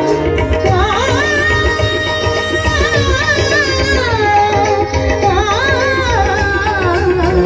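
Dance music: a singing voice holding long, wavering notes over a steady drum beat.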